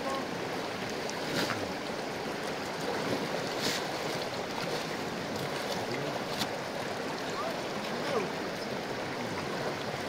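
Shallow river rushing steadily over stones, with water splashing and sloshing as heavy wet carpets are dragged and worked through it; a few sharper splashes stand out.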